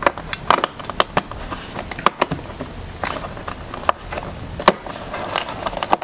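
A string of irregular sharp clicks and taps as fingers press and fiddle the 2017 iMac's memory access door back into its slot in the aluminium back panel.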